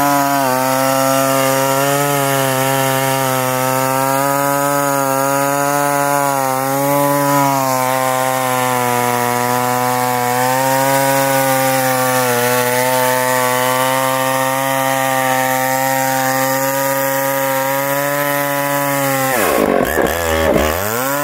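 Husqvarna 2100XP 100cc two-stroke chainsaw with a 50-inch bar cutting wood under load, its engine holding a high, steady pitch with slight wavers. Near the end the engine pitch dips sharply and climbs back up a couple of times.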